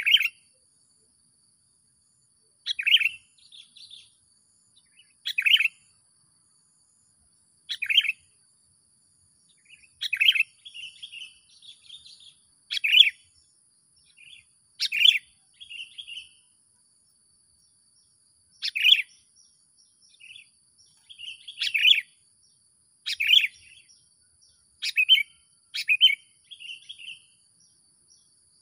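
A bird calling: about a dozen short, sharp, loud calls spaced roughly two to three seconds apart, with softer twittering notes between some of them.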